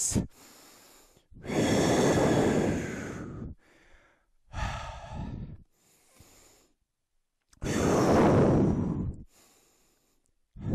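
A man's heavy breathing from the exertion of side-to-side lunges: three long, loud exhales about three seconds apart, with quieter breaths between them.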